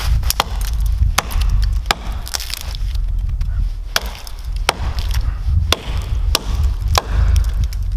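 Dead balsam fir wood being struck and split open, about ten sharp, cracking blows roughly one every 0.7 s, over a low rumble.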